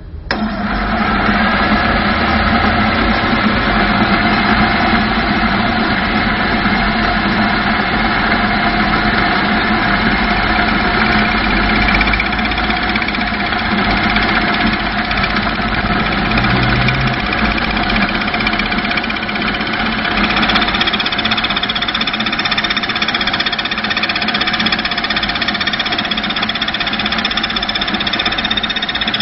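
Machine tool converted to CNC running steadily, its spinning wheel working a steel workpiece: a loud, steady mechanical hum with a whine over it. The sound comes in abruptly at the start, and a higher whine grows stronger about two-thirds of the way through.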